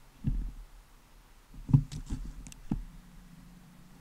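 Four or five dull low bumps, the loudest a little under two seconds in, with a few light clicks among them.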